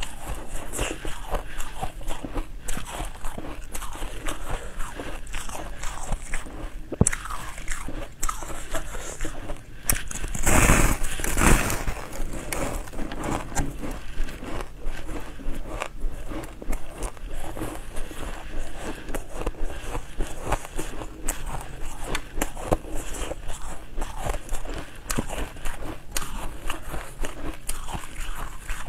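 Biting and chewing frosty, powdery coloured ice: a steady run of crisp crunches, with a louder, longer crunch about ten to twelve seconds in.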